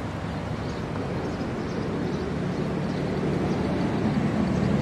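A steady low mechanical rumble, like engine or traffic noise, growing slightly louder toward the end.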